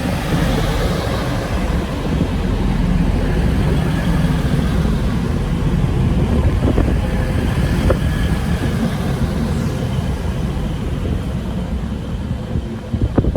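Class 185 diesel multiple unit standing at the platform with its diesel engines idling, a steady low rumble.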